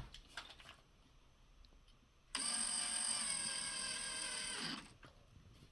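A small electric motor runs with a steady whine for about two and a half seconds, starting abruptly and dropping in pitch as it winds down, after a few light handling clicks.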